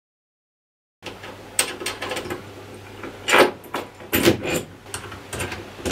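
After about a second of silence, irregular metallic clicks, taps and light rattles: a stainless steel stove gimbal bracket being handled and fitted against a stainless steel cabinet panel.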